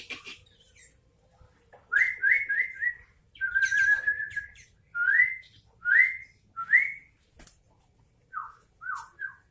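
Sooty-headed bulbul singing clear whistled notes: a quick run of four rising notes, a longer held note, single upslurred whistles about a second apart, then a few falling notes near the end.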